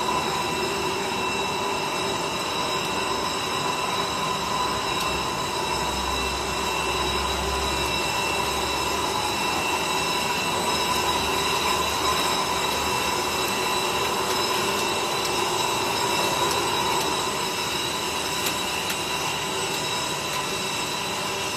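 Stretch film machine (model 1000-2) running under test: a steady mechanical hum and rush with several steady high whining tones over it.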